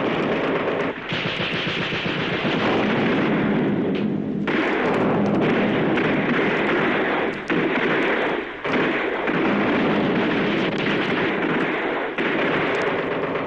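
Battle sound of dense, rapid gunfire mixed with artillery fire, almost unbroken, with a few brief lulls.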